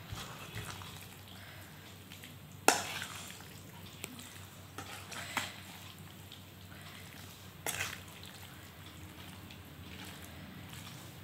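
Hand stirring and squishing oily mango pickle in a steel bowl, soft and wet. A sharp knock about three seconds in and another near eight seconds.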